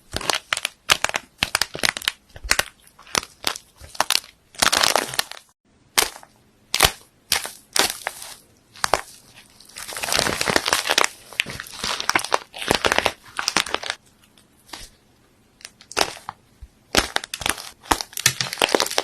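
Slime being squeezed and pressed by hand, giving irregular runs of crackling, crunching and popping, with a short break about five and a half seconds in and a quieter stretch near the end.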